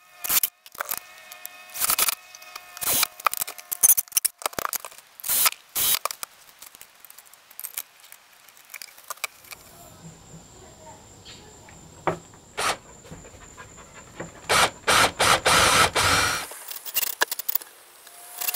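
Light clicks and metal taps as the storm door closer bracket is handled and marked against the door. Then a cordless drill runs in several short bursts into the door's aluminium skin, about two-thirds of the way in.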